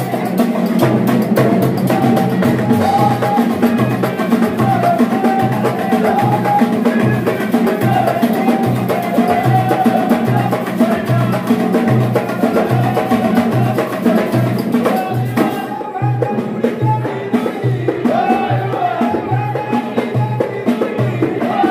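Moroccan Abidat Rma folk music: men's voices singing over a steady, even beat of bendir frame drums and tambourines.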